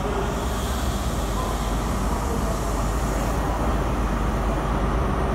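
CrossCountry Intercity 125 (Class 43 HST) moving alongside the platform, its diesel power car giving a steady, deep rumble and hum.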